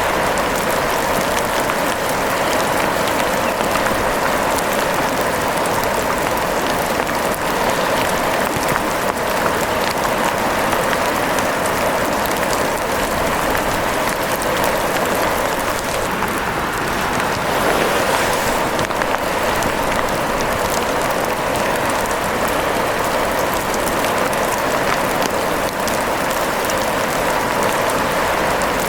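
Steady rain falling in a dense, even patter, unchanging throughout.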